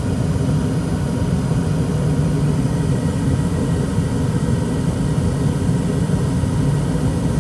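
ICP gas furnace running with its burners lit, a steady low rumble that holds even throughout.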